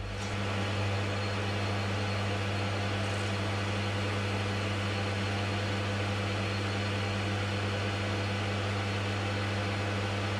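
A machine tool's electric motor running steadily: an even, low hum with a noisy whir over it that does not change.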